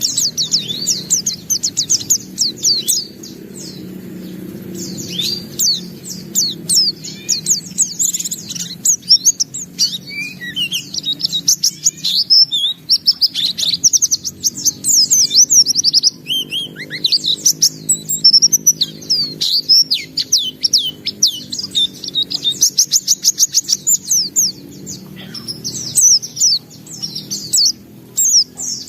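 White-eye (pleci) singing a continuous, rapid song of high chirps, sweeping notes and trills, with runs of fast repeated notes. A faint low steady hum runs underneath.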